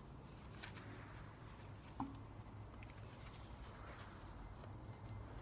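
Faint handling of plastic tricycle footrest parts: light rustles and taps, with one sharper click about two seconds in.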